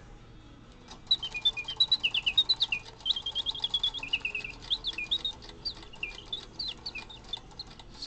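Silver singing bird box automaton: its clockwork bellows-and-whistle movement plays rapid warbling chirps and trills like birdsong, starting about a second in, with faint clockwork ticking underneath.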